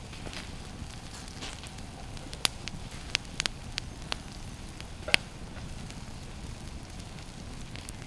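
Wood campfire crackling steadily, with a handful of sharp pops in the middle, the loudest about five seconds in.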